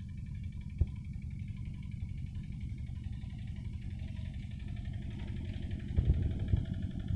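Single-cylinder diesel engine of a Yanmar two-wheel hand tractor chugging steadily as it works through a rice field, with a few heavier thumps near the end.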